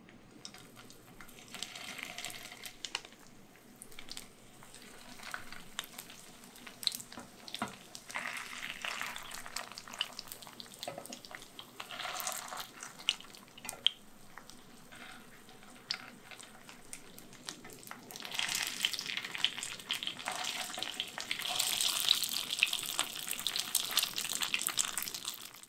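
Vegetarian mock chicken drumsticks deep-frying in a pan of hot oil: a steady sizzle full of small crackles and pops. It grows louder and busier in the last several seconds.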